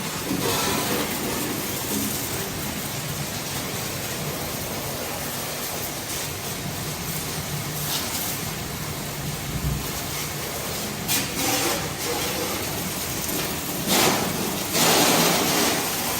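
Water spraying steadily onto a vehicle being washed, a continuous hiss with a few louder surges, the longest near the end.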